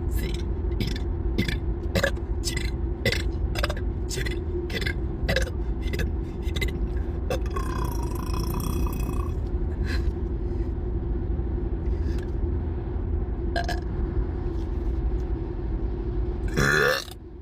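A woman burping over a steady low rumble, with a run of sharp clicks through the first half.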